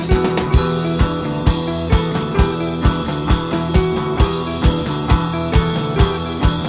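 Psychedelic rock band playing: guitar and bass over a steady drum beat of about two hits a second.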